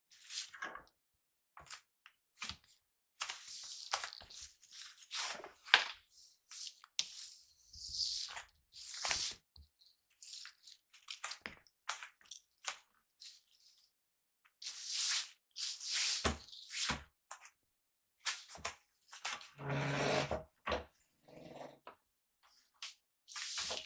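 Straw broom sweeping a vinyl floor mat in short, irregular swishing strokes. About twenty seconds in, a short low voice-like sound comes twice.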